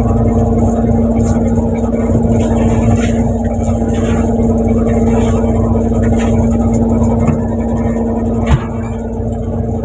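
Fishing boat's engine running with a steady low drone and a constant hum. Short knocks and clatter of fishing gear being handled on deck sound over it, with a sharper knock near the end.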